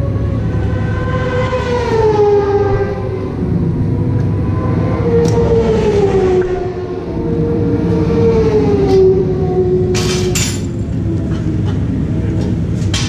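Motorcycle engines running at high revs, their pitch sliding slowly down and back up over a few seconds at a time, over a steady low rumble; a short clatter about ten seconds in.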